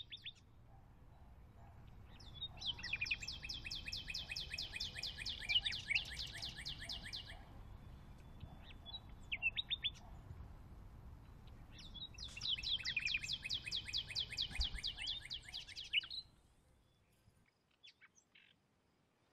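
A songbird singing two long trills of rapid repeated high notes, each lasting about four to five seconds and a few seconds apart, with short chirps in between. A low rumble runs underneath and dies away near the end.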